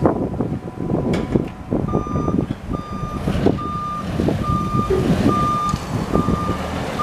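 Yale GLP065T LPG forklift running as it drives in reverse, its reversing alarm sounding a steady string of short, even beeps a little under a second apart from about two seconds in, over the engine's running and rattling.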